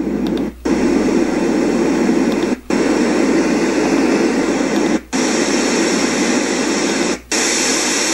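Elesories S5 STD white noise machine playing white noise from its speaker. The noise cuts out briefly four times, about every two seconds, as a button press steps it through its different white noise sounds. The later sounds are brighter and hissier.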